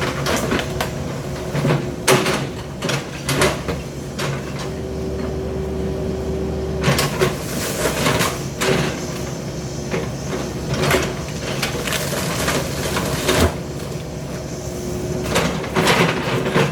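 Heavy demolition machinery with its engine running steadily, while debris is broken and dropped in a string of irregular sharp knocks, clanks and crashes.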